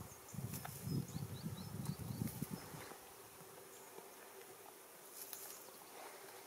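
Goats munching and tugging at the branches of a fir Christmas tree: a low, rustling, crunching sound for about the first three seconds, then quieter.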